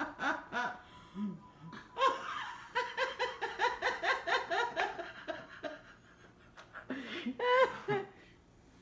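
People laughing at a table, in rapid pulsed bursts, with a louder, higher-pitched burst of laughter about seven seconds in.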